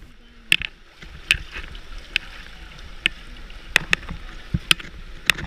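Water splashing: a string of small, irregular splashes, about one every half second to a second, over a steady hiss of moving water, as from someone swimming or wading.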